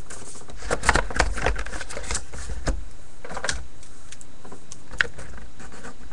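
Light desk-handling noises of trading cards and paper: a cluster of small clicks and taps about a second in, a soft rustle around the middle, and one sharp click near the end, over a steady low hum.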